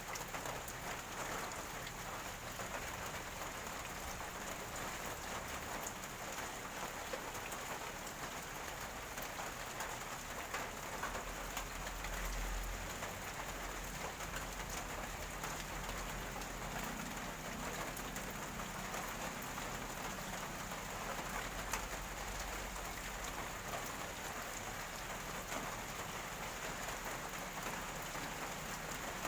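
Steady rain falling, an even hiss of drops, with a low rumble rising for a stretch in the middle.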